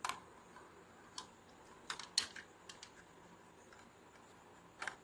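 Scattered light clicks and taps from gloved hands handling parts and a power cable on a workbench, unevenly spaced, the sharpest about two seconds in.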